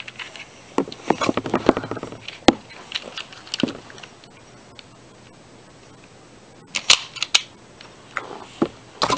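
Plastic clicks and clacks of a LEGO brick blowback pistol's mechanism being worked: quick clusters of clicks, a single sharp snap about two and a half seconds in, and more clicking near the end.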